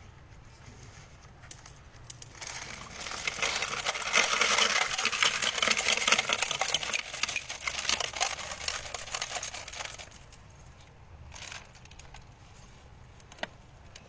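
Loose brass cartridges clinking and jingling against each other as handfuls are pulled out of a motorcycle and dropped onto a pile: a dense run of metallic clicks from about two and a half seconds in, loudest in the middle, dying away at about ten seconds, with a few single clinks after.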